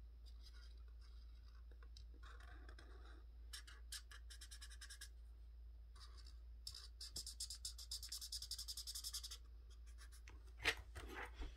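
Faint scratching of a coloring tool on paper: scattered strokes, then about three seconds of fast back-and-forth coloring strokes past the middle. A short, louder sound comes near the end.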